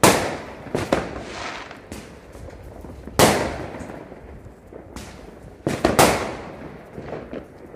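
Aerial fireworks bursting overhead: a loud bang right at the start, another about three seconds in and a close pair near six seconds, each fading out in an echo, with smaller pops between.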